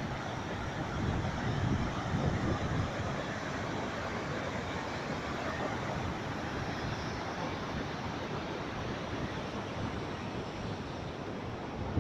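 Steady rushing of a waterfall, with wind buffeting the microphone in gusts for a couple of seconds near the start.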